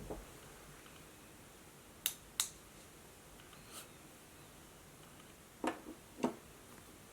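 Scattered clicks and taps from work at a laptop and notebook: two sharp clicks about two seconds in, a fainter one near four seconds, then two duller taps about a second from the end.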